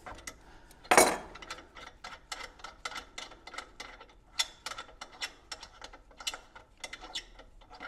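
A metal AN wrench set down on a wooden workbench with one sharp clack about a second in, then a run of small, irregular metallic ticks and clicks as a fitting is worked loose by hand from the intake assembly.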